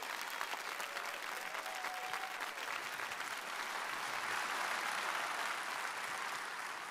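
Audience applauding at the end of a song, starting to fade near the end.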